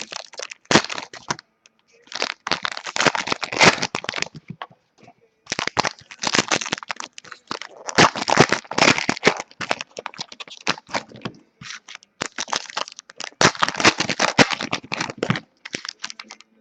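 Trading card pack wrapper crinkling and crackling as packs are handled and torn open, in four bursts with short pauses between them.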